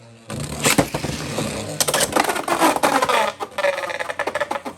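Beyblade X spinning tops (Dran Sword and Wizard Arrow) launched with ripcord launchers: a brief launcher whir, then the tops clattering and colliding in a plastic stadium, a dense run of sharp clicks with a ringing spin tone near the end.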